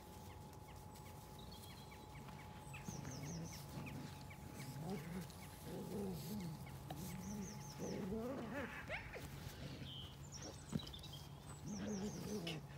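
Low animal calls wavering up and down in pitch, with small birds chirping in short high runs several times in the background.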